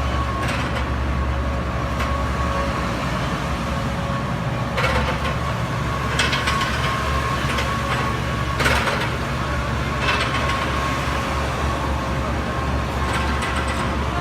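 Mini excavator running, its engine humming steadily under a thin steady whine, with several short metallic clanks and rattles as it works.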